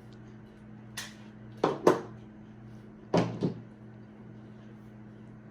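Several sharp clicks and knocks from handling a 9mm pistol, as its magazine is dropped out. The loudest is a close pair just under two seconds in, and another pair comes about three seconds in.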